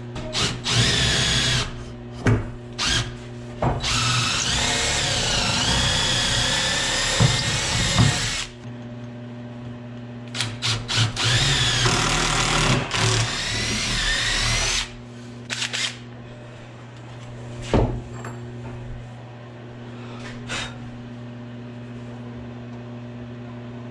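Cordless drill pre-drilling pilot holes in a wooden board. There are short trigger blips, then two long runs of several seconds each, with the motor whine wavering in pitch as the bit bores into the wood. A steady low hum sits underneath.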